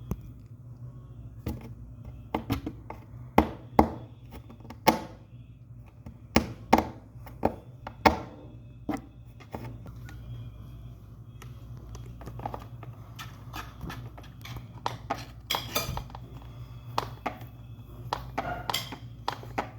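Irregular sharp knocks and clinks of small hard objects striking, a few to the second and loudest in the first half, over a steady low hum.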